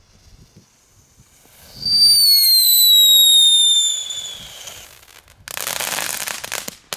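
A Knetter King category 1 ground firework going off: a loud whistle that falls slowly in pitch for about three seconds, then about a second of dense crackling, ending in one sharp crack.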